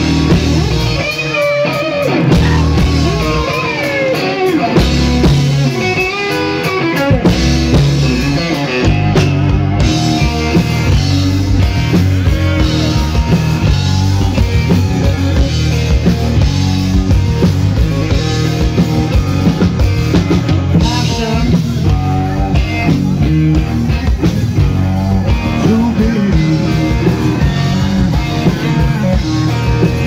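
A live rock band playing: electric guitar over bass guitar and a drum kit, with a steady beat.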